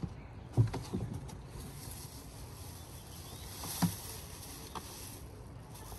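Unboxing a lawn mower from its cardboard shipping carton: a few dull knocks as the box and the parts inside are handled, the loudest a little over half a second in and another near four seconds, with plastic wrapping rustling.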